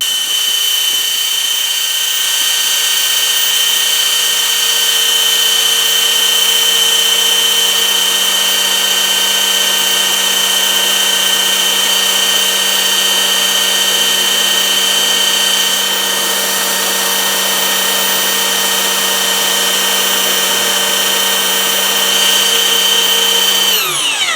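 Small electric sander running steadily with a high whine, sanding the ferrule and glue off the end of a graphite golf-club shaft. It is switched off near the end, its pitch falling as it spins down.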